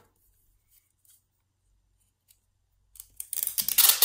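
Clear plastic adhesive tape being pulled off the roll: a loud, fast crackling that starts about three seconds in and grows louder.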